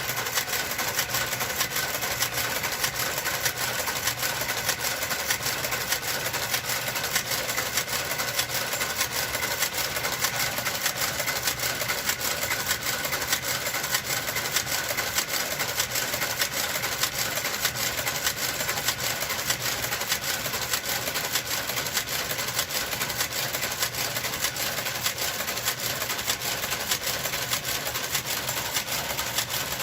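Knitting machine knitting rows of the sweater back: a steady, fast clatter of clicks from the carriage and needles, with no pauses.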